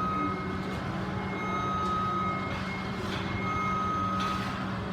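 Reversing alarm of a construction vehicle beeping steadily, about one long beep every two seconds, over the constant hum of a running engine.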